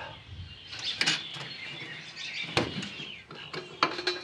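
Sharp clicks and taps of small metal parts handled as a throttle cable's threaded adjuster is fitted into a steel bracket, the loudest about two and a half seconds in and a cluster near the end, with birds chirping in the background.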